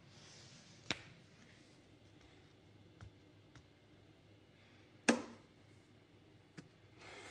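Quiet room tone broken by a few sharp clicks: one about a second in, a louder knock about five seconds in, and fainter ticks between.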